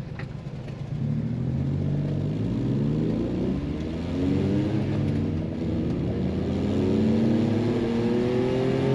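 Kei mini truck's small engine, heard from inside the cab, pulling away and accelerating. Its pitch rises, drops back and rises again several times as it is shifted up through the gears.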